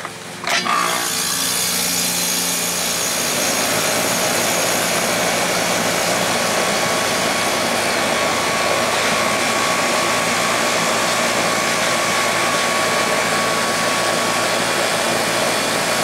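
A few clicks as the disconnect pull-out block is pushed home, then a Comfortmaker AG042GB1 3.5-ton R-22 central air conditioner condensing unit starts about a second in and runs steadily, its compressor and condenser fan making an even rushing noise.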